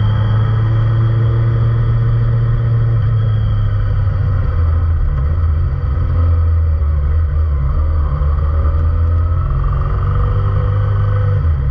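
Kawasaki Ninja ZX25R's inline-four engine running at low, steady revs through an Akrapovic full exhaust system, a deep rumble. Its pitch dips slightly about four and a half seconds in and comes back up near the end.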